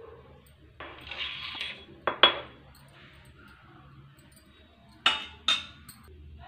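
Steel spoon clinking against a stainless steel bowl while spooning in powder and paste: a brief scrape about a second in, two sharp clinks just after two seconds, and two more about five seconds in.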